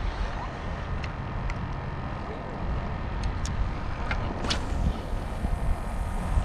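Wind buffeting the microphone in a low rumble over a steady rush of rough, churning water, with a few short light ticks.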